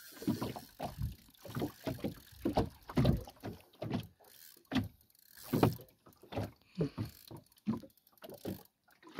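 Water slapping and lapping against the hull of a small open boat in short, irregular splashes, about two a second.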